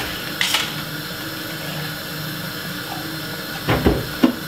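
A steady low machine hum, like a small electric motor running, with a short sharp clink about half a second in and a couple of knocks near the end.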